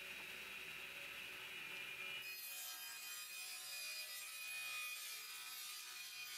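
Table saw running with a steady blade whine; about two seconds in the blade starts cutting through plywood, adding a harsher, higher sawing noise that lasts to the end.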